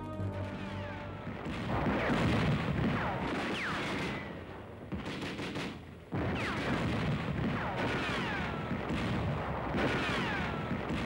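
Battle sounds: dense gunfire and explosions, with high whistles falling in pitch several times. The noise sags and then cuts back in abruptly about six seconds in.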